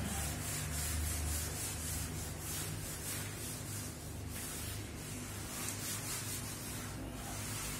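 Whiteboard eraser rubbing across a whiteboard in quick repeated wiping strokes, clearing off marker writing, over a steady low hum.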